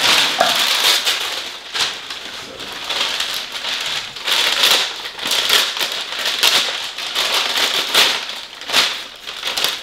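Gift wrapping paper, including a silver foil-like sheet, being torn open and crumpled by hand: a continuous crinkling and rustling with frequent sharper rips.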